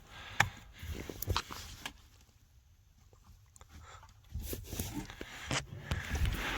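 Heavy breathing close to the microphone, with a few sharp clicks and handling noises.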